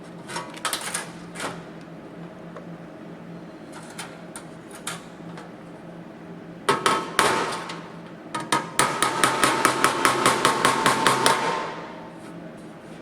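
Metalwork on a car sill panel during tack welding: a few sharp metallic clicks, then a short crackling burst about seven seconds in, and a run of rapid, evenly spaced strikes, about four a second, for some three seconds before it stops.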